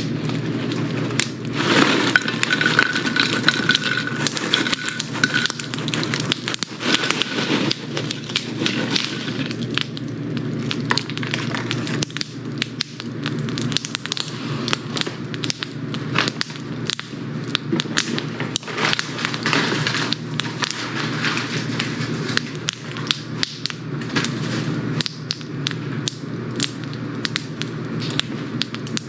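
Fried pork rinds shaken out of a paper bag onto a ceramic plate: paper rustling, with a dense run of crisp crackles and light clicks as the rinds tumble and settle on the plate.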